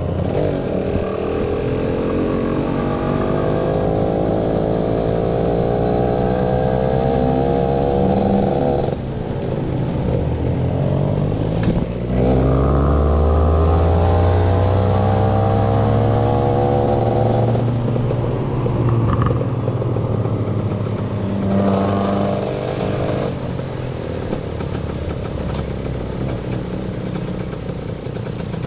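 Motorcycle engine under way, its pitch climbing steadily as it accelerates, dropping about nine seconds in, then climbing again for about five seconds before settling to a lower, steadier run.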